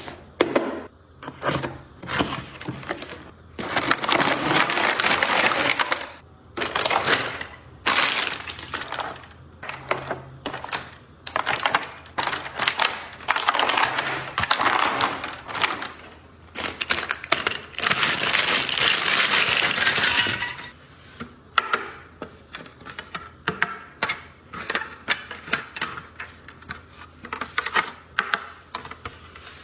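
Crinkly plastic being handled, crackling in bursts of a second or two at a time, then a run of short clicks and taps over the last third.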